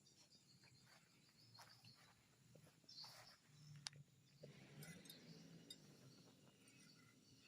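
Near silence: faint forest ambience with scattered soft clicks and rustles and one sharp tick about four seconds in.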